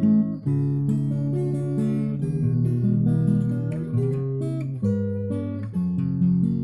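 Background music: an acoustic guitar strumming and picking chords that change every second or so.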